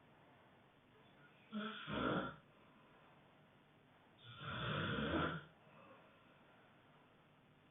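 A sleeping person snoring: two snores about three seconds apart, the second one longer, with quiet breathing between them.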